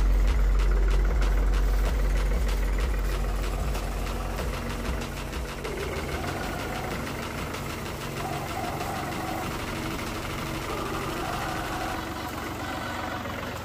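New Holland 5500 tractor's diesel engine running as it drives through shallow muddy water, its tyres splashing. The engine is loudest at first and fades over the first several seconds, then holds steady.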